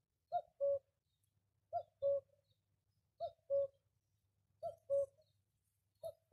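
Common cuckoo calling its two-note "cu-coo", the second note lower than the first, repeated evenly about every one and a half seconds, five times.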